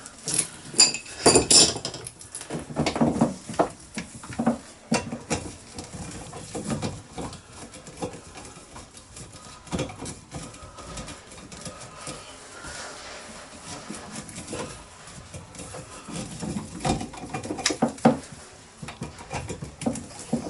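Irregular clattering and knocking of plumbing parts being handled and fitted under a wash basin as the waste and tap connections are made up, with a loud flurry of clatter about a second in and another near the end.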